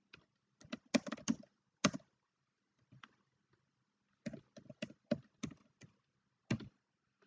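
Typing on a computer keyboard: irregular keystrokes in two quick runs, with a pause of about two seconds between them.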